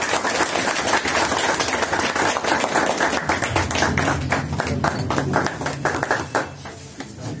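A small group of people applauding with hand claps, dense at first, then thinning to scattered claps that die away near the end.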